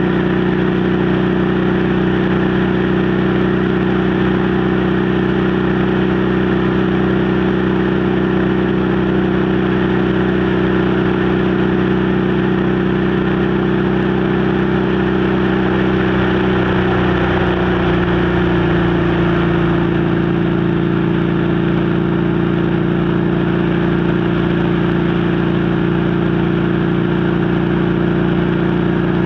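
Motorcycle engine and exhaust running at a steady cruising speed, with wind rush over the microphone. The engine note drops slightly a little past halfway and then holds steady.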